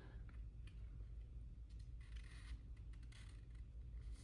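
Faint rustling and light clicks of paper stickers being handled: a box sticker peeled from its sheet and set on a planner page.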